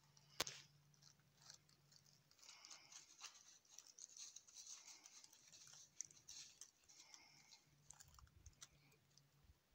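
Faint crackling rustle of dry fallen leaves, irregular and soft, with one sharp click about half a second in.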